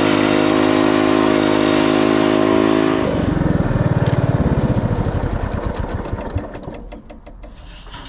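An engine running steadily, then switched off about three seconds in. Its firing slows into separate beats and dies away over the next few seconds.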